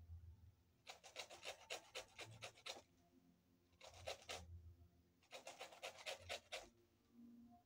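Lemon rind scraped against a handheld metal grater: quick rasping strokes, about six a second, in three runs, the first starting about a second in, with short pauses between.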